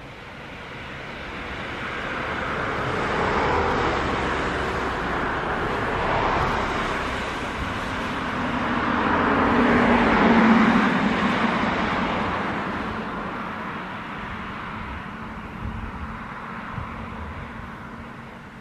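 Road traffic: a car passes, then a second, louder vehicle with a low engine hum swells about ten seconds in and fades away.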